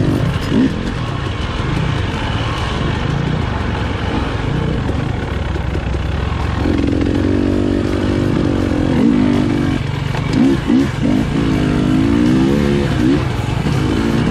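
KTM 300 XC-W TPI two-stroke dirt bike engine under way on a steep climb, the revs rising and falling repeatedly. It holds a higher pitch for a few seconds past the middle, then gives several quick blips of the throttle.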